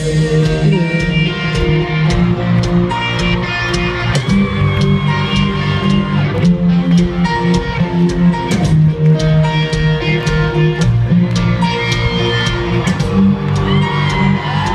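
Band playing an instrumental passage with no vocals: guitar over bass and drums, with a steady beat.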